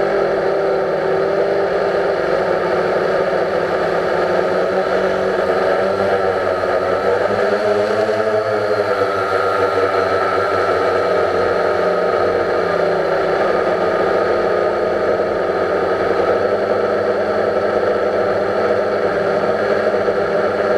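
Quadcopter drone's motors and propellers whining steadily, recorded from the drone's own onboard camera, with the pitch shifting briefly about eight seconds in as the motors change speed.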